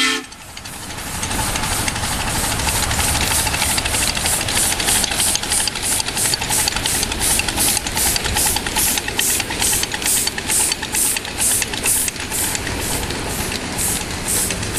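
Ride-on live-steam model of the Monon 561, a Mountain-type (4-8-2) steam locomotive, running past under steam with a steady hiss. Its exhaust chuffs come about three a second, growing louder over the first few seconds as it approaches.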